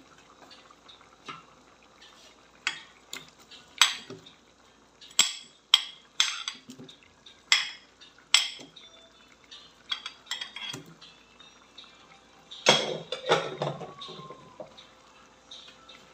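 A metal spoon clinking and scraping against a plate and a metal wok as chunks of vegetable are pushed into the pot: a run of sharp separate clinks, then a denser, louder clatter about two-thirds of the way through.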